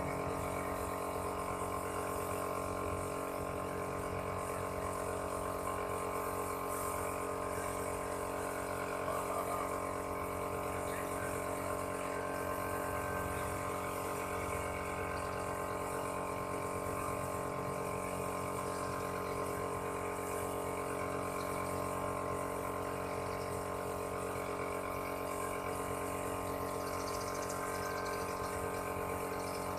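Steady hum of an air compressor running continuously, with the hiss of compressed air from a paint spray gun. It holds even, with no starts or stops.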